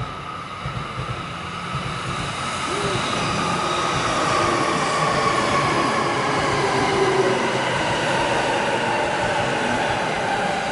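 A Saikyō Line E233-series electric commuter train running in along the platform, growing louder over the first few seconds and then holding steady. Wheels run on the rails under a motor whine that falls slowly in pitch as the train brakes for its stop.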